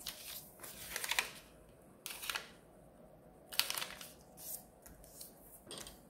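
Sheets of origami colour paper being handled and creased by hand, giving about half a dozen short, dry rustles and crinkles spread across the few seconds.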